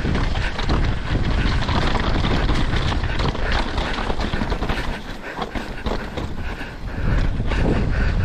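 Mountain bike descending over bare rock slabs and loose gravel: tyres rumbling and the bike clattering over the bumps, with wind buffeting the microphone. It eases off briefly about five seconds in and grows louder again near the end.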